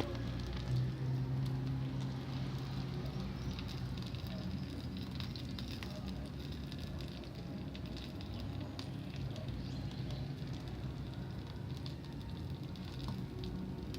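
Homemade bonfire burning: a steady rushing noise scattered with small crackles and pops, over a low steady hum.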